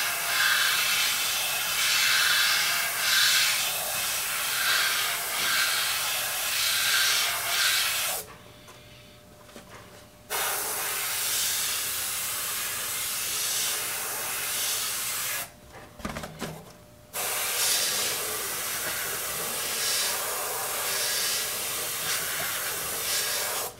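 Airbrush spraying paint, a steady hiss of compressed air that cuts off twice, about 8 and 16 seconds in, each time for a second or two.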